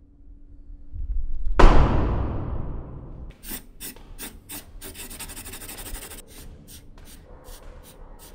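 A deep hit that swells and fades over a second or so, then a run of short, dry scratching strokes, rasping and rubbing, with a longer continuous scrape in the middle.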